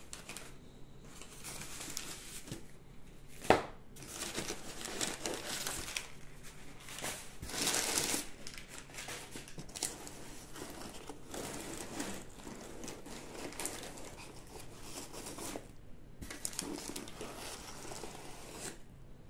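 Crumpled newspaper packing rustling and crinkling as it is handled and pulled out of a cardboard box, with one sharp knock about three and a half seconds in and a louder stretch of crinkling around eight seconds in.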